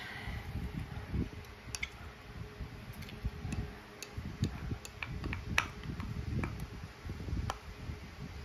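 Wooden spoon working in ceramic bowls, scooping rice into soup: scattered light clicks and taps, about a dozen at irregular intervals, over soft low thumps of handling.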